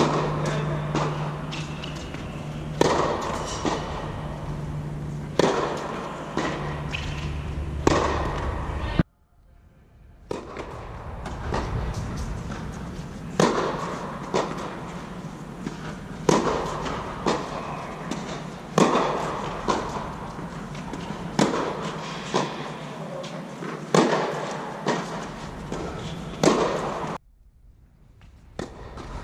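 Tennis rally: a ball struck by rackets and bouncing on a hard court, sharp pops every second or two that echo under an air-supported tennis dome. The sound cuts out briefly twice, about nine seconds in and near the end.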